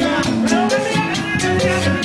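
Latin band playing salsa music: sustained horn or keyboard notes over a steady beat of drums and hand percussion.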